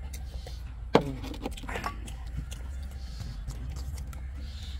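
Eating sounds of two men eating rice and goat head curry by hand from steel plates: small clicks and scrapes of fingers and food against the plates, with chewing, over a steady low hum. A single sharp knock stands out about a second in.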